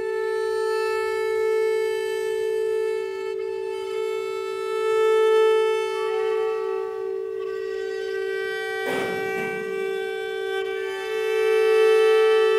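Viola played live as a sustained drone: one steady low note holds throughout, and a second, higher note joins about halfway through. A short rasping scrape sounds about nine seconds in.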